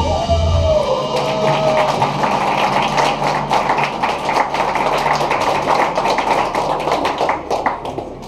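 Live rock band playing with two electric guitars and drums: a gliding note in the first two seconds, then a dense run of rapid picked and struck notes that fades away near the end.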